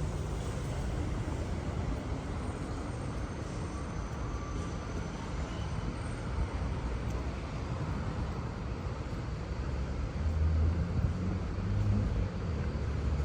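City street traffic noise: a steady wash of road and engine sound, with a deeper engine rumble growing louder about ten seconds in.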